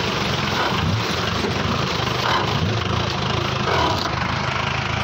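Jeep CJ engine running steadily as it drives slowly over a rough, rocky dirt track.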